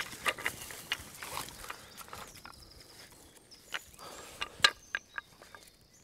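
Scattered clicks and light knocks of a wooden pulley block and its webbing sling being handled while the pulley is fitted to a strap round a tree trunk.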